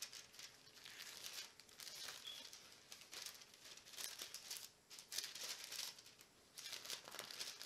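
Bible pages being turned by hand: faint, irregular rustling of thin paper in short bursts while the pages are leafed through to a verse.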